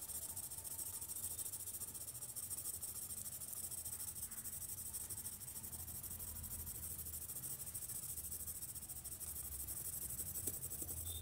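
Paper blending stump rubbing back and forth over a graphite pencil swatch on drawing paper, a steady rubbing hiss.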